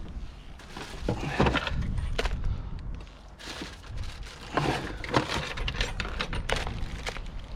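Irregular clatter, knocks and rustling of junk being handled and pulled out of a pile.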